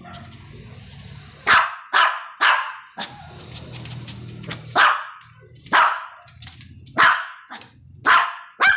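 Small long-haired dog barking: a series of about nine sharp barks, starting about a second and a half in and coming every half second to a second.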